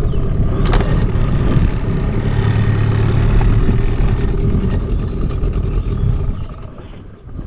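A small river boat's motor running steadily under way, then easing off near the end.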